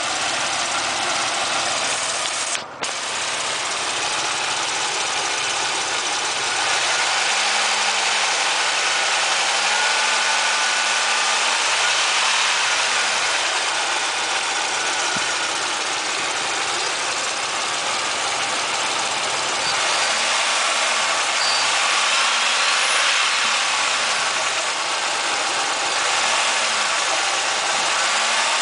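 GM 3100 3.1-litre V6 in a Chevrolet Monte Carlo idling cold, running with loud top-end noise. The owner puts the noise down to piston slap or lifter tap. On this engine it is usual when cold and often fades once warm.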